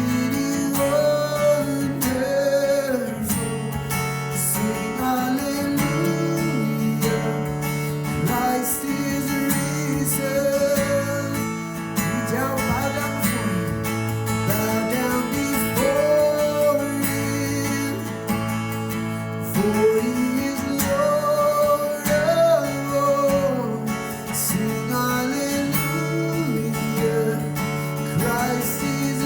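Worship band music with no sung words: strummed acoustic guitar over held bass notes, with a melody line gliding above.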